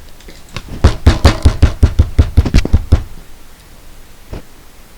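A rapid run of sharp knocks or taps, about six a second for about two seconds, then a single faint tap a little later.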